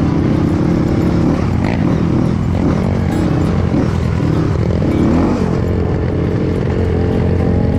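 Dirt bike engine running while being ridden, the revs rising and falling with the throttle.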